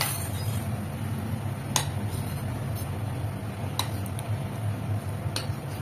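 Kitchen knife cutting through a block of paneer, its blade clicking sharply against a stone board three times, about two seconds apart, over a steady low hum.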